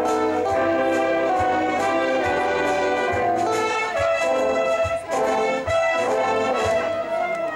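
Brass band playing: sustained brass chords over a regular low beat about once a second.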